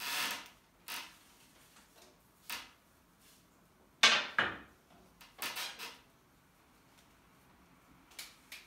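A hand pressing and rubbing a ball of yufka dough on a flour-dusted glass tabletop: a series of short brushing scrapes, the loudest about four seconds in.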